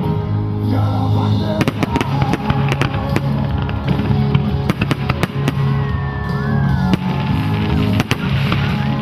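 Fireworks bursting and crackling in quick succession over loud show music with a steady bass line. A few whistling glides sound in the middle.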